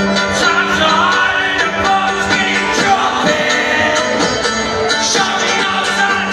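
Live rock music from a two-piece punk band, with a loud guitar and a man singing, heard from within the audience.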